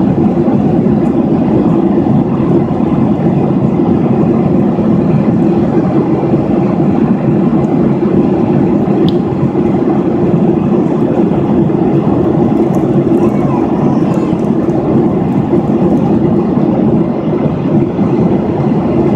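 Jet airliner cabin noise in flight: the engines and rushing air heard from a window seat as one loud, constant, even drone with a steady low hum in it.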